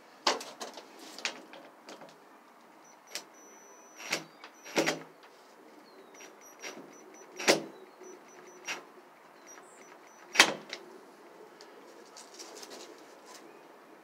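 Handling and tightening at a metal door's hinge: a string of irregular sharp clacks and knocks from a cordless drill and gloved hands against the door and hinge, the loudest two about halfway through and near three quarters through, with faint short high whines in between.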